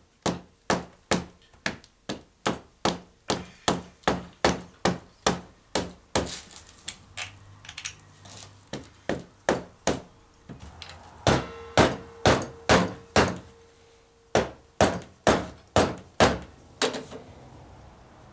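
Rubber mallet striking a piece of brass stock over and over, about three blows a second, driving a brass stud press-fit into a car battery's side-post terminal. The blows go lighter for a few seconds midway, then come hardest with a brief ring, and stop shortly before the end.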